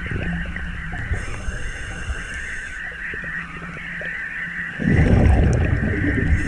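Underwater sound through a diving camera: a steady high whine over low rumble, then, about five seconds in, a loud rush of bubbles for a second and a half as the scuba diver breathes out through the regulator.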